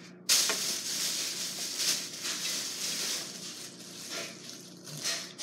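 Clear plastic packaging crinkling and rustling as it is pulled off a lamp cord by hand, starting abruptly just after the start and dying down near the end.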